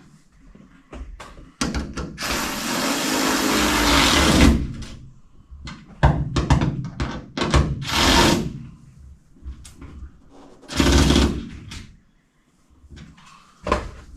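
Power driver running in short bursts, the longest about three seconds, with clicks and knocks between, as it runs the cab marker lights' mounting nuts onto their studs lightly.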